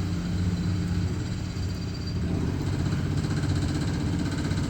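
CNC milling machine running with a steady mechanical hum; about halfway through a fast, fine rattle joins the hum.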